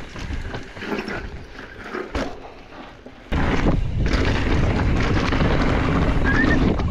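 Wind buffeting the microphone of a mountain bike's ride camera, mixed with trail rumble. It is uneven with a few sharp clicks at first, then jumps suddenly to a loud, steady rumble a little over three seconds in.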